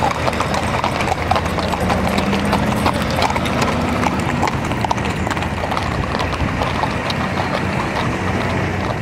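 Many horses' hooves clip-clopping on an asphalt road as a group of horses walks along together, the hoofbeats close and overlapping in a dense, irregular patter.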